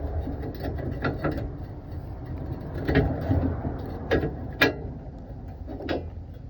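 Rusty metal spare-tire hanger bracket of a Ford F-150 being wiggled and worked back into its mount: scattered metal clicks and clanks, with a few sharper knocks, over a low rumble.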